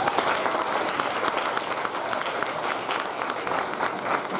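Audience applauding, many hands clapping at once, with a few voices mixed in.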